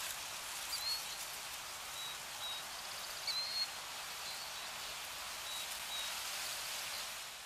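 Outdoor nature ambience: a steady hiss with short, high bird chirps scattered through it, the clearest about one second and about three seconds in.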